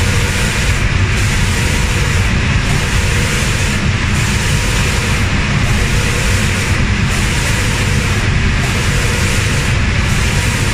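Automatic reciprocating spray painting machine running: a steady high hiss from the spray guns over a low machine hum. The hiss breaks off briefly about every second and a half.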